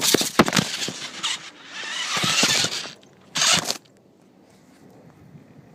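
Small RC truck driving in short spurts, its wheels and body scraping and rattling with sharp clicks. It stops about four seconds in.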